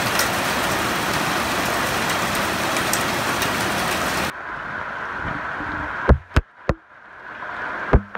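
Heavy rain hissing steadily on tiled and corrugated metal roofs. About four seconds in it drops abruptly to quieter rain, broken near the end by a few sharp knocks.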